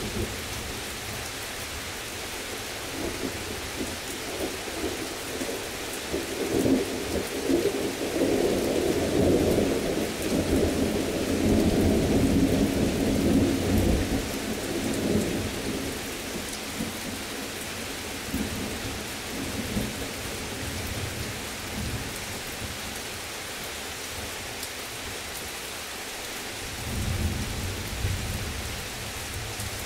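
Heavy rain falling steadily, with a long rumble of thunder that builds a few seconds in, peaks, and dies away before the halfway point. A second, shorter rumble of thunder comes near the end.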